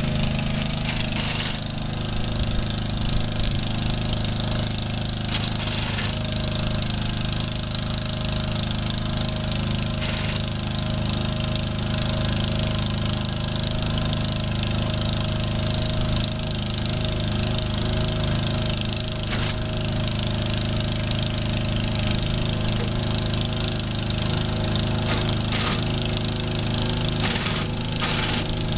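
Small engine running steadily at one speed, with a few short knocks.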